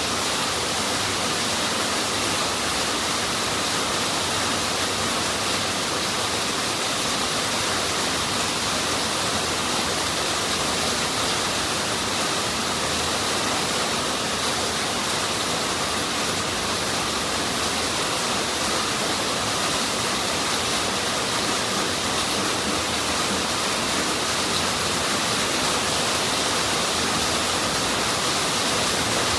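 A steady high hiss of even noise, like rushing water or rain.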